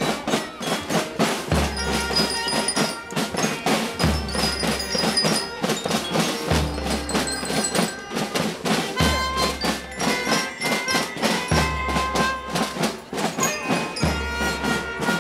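School marching band playing: snare drums beating dense rolls and rhythms while bell lyres ring out a melody, with a deep low beat about every two and a half seconds.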